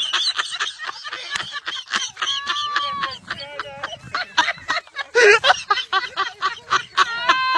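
People's voices with repeated snickering laughter, and a couple of held, high-pitched calls.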